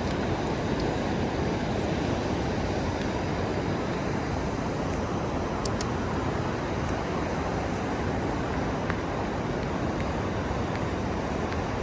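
Steady roar of ocean surf with wind on the microphone, an even rushing noise that stays heaviest in the low and middle range without rising or falling.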